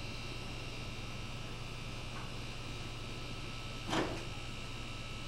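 Steady electrical hum with a hiss over it, and one short sharp noise about four seconds in.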